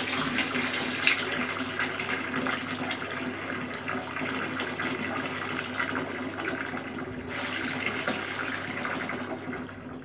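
Bathroom basin tap running, its thin stream splashing into a ceramic washbasin and over the mouth of a cat drinking from it. The hiss softens for a few seconds midway and comes back brighter about seven seconds in.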